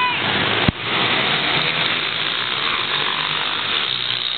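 Small-displacement pit bike engines buzzing as several bikes race around a dirt track, with a single sharp knock less than a second in.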